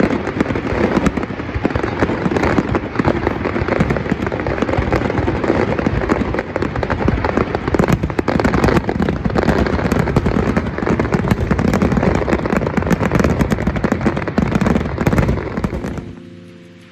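A fireworks display going off: dense, continuous crackling and popping with sharper bangs mixed in. It stops abruptly about a second before the end, where music fades in.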